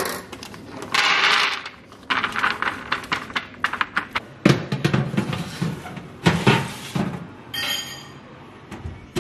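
A paper bag of almonds rustling and the almonds rattling as they are poured and spread on a parchment-lined baking tray, then a few heavy knocks and a brief high metallic squeak near the end.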